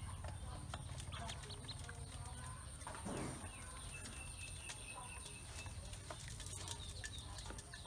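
A group of ducklings peeping while they feed in an aluminium basin, with many short taps as their bills peck at the feed on the metal.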